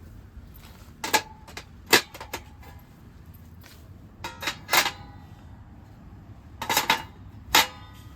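A few sharp metallic knocks and clinks at uneven intervals, some with a brief ringing tail, like hard metal items being handled and set down against each other.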